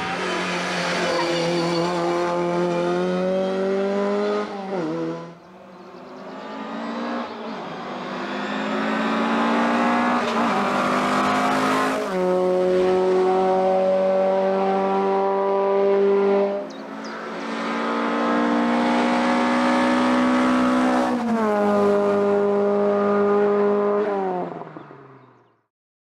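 Racing car engines at full throttle, one car after another. The pitch climbs in each gear and drops back at quick upshifts, and the sound fades away just before the end.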